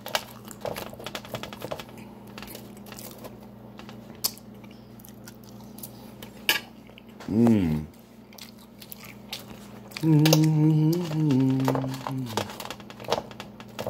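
Close-up eating sounds: chewing with wet mouth clicks, and food picked off a metal baking sheet. A wordless voice sounds twice, briefly about seven seconds in and for a couple of seconds from about ten seconds.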